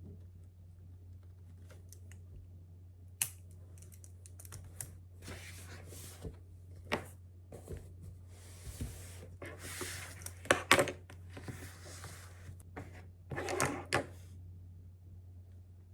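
Irregular clicks, taps and short rustles of handling at a desk, loudest about two-thirds of the way through, over a steady low hum.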